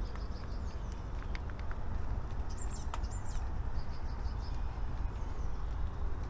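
Small birds chirping over a steady low rumble of outdoor background noise. There is a quick run of high notes at the start and two short calls about halfway, with a few light clicks between them.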